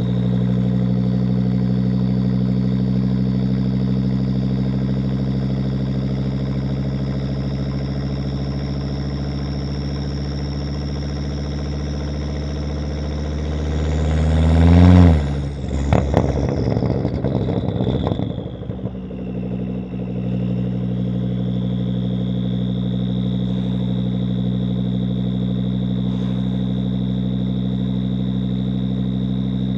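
Volvo S60 2.5T's turbocharged inline five-cylinder engine with a catless exhaust, idling steadily. About halfway through it is revved once, the pitch rising and then dropping off sharply into a couple of seconds of crackling pops from the exhaust, before it settles back to a steady idle.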